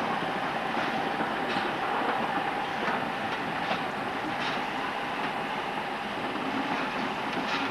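Railway train running along the track: a steady rolling rumble with irregular clicks of the wheels passing over rail joints.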